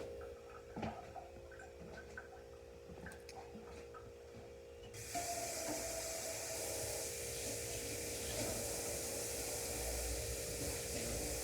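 A few small clicks and knocks, then about five seconds in a tap is turned on and water runs steadily into a sink.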